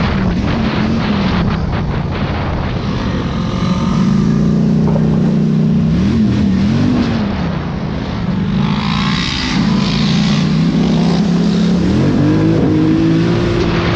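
ATV engine under way on a dirt trail, its revs rising and falling repeatedly with the throttle, then climbing near the end and holding. Wind rushes over the microphone throughout.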